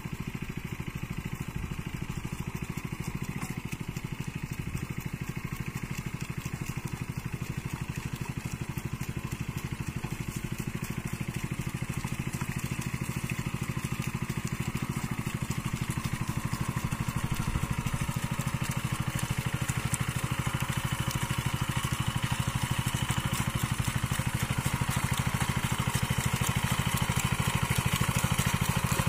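Two-wheel hand tractor with metal cage wheels puddling a flooded rice paddy: its small engine runs steadily under load and grows louder as it comes closer.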